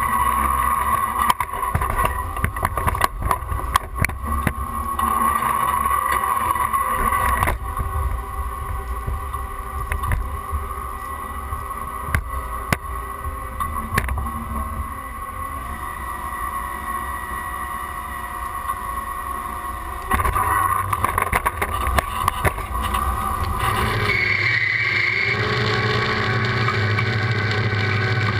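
Field running noise of a John Deere 7810 tractor pulling an 11-row anhydrous ammonia toolbar with Yetter Magnum row units through the soil: a steady drone with irregular rattles and knocks from the toolbar. About four seconds before the end it changes to a steadier, even hum.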